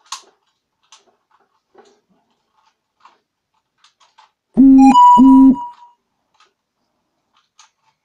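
Quiet clicking of a Rubik's Cube's plastic layers being turned. About halfway in, two loud buzzing tones of about half a second each, at one steady pitch, cut across it.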